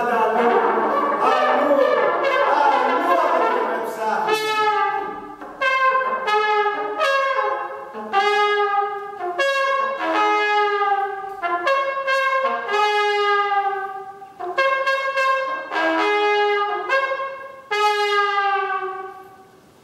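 Solo trumpet played live: a busy flurry of quick notes, then a string of separate held notes about a second each, some bending down in pitch at their ends, the last one fading away near the end.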